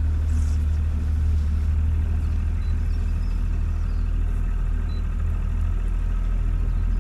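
A boat's engine running steadily with a low, even hum as the fishing boat motors along.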